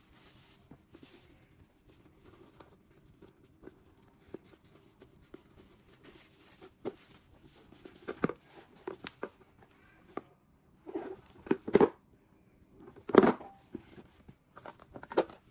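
Hands handling a cardboard gift box: faint rustling as a ribbon is untied and slid off, then louder knocks and scrapes of cardboard as the box is handled and its lid lifted off.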